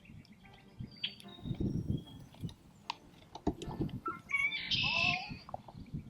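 A short animal call with gliding pitch, about four and a half seconds in, over low rustling and scattered clicks.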